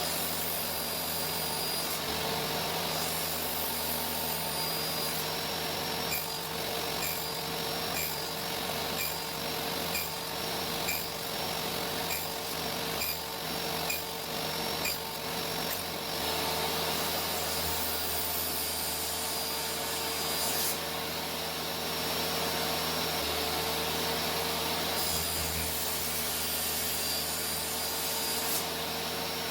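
DeWalt DWE7492 job-site table saw running at speed with a steady motor whine, its blade cutting into wood. A series of light ticks, about one a second, comes through in the middle.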